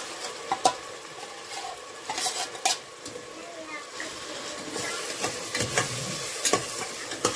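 Spice masala and onion-tomato paste frying (bhuna) in hot oil in a pressure cooker pot, sizzling steadily while a spoon scrapes and knocks against the pot as it is stirred. The sizzle grows louder about halfway through.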